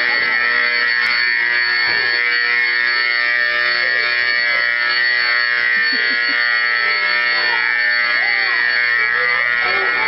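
School fire alarm sounding continuously: a loud, steady buzzing tone that does not pulse or let up, with faint children's voices beneath it.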